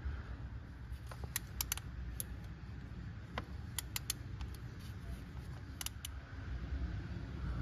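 Scattered light clicks and taps of a ratchet with socket extension and a hand tool working screws in a car engine bay, about ten in all, over a low rumble.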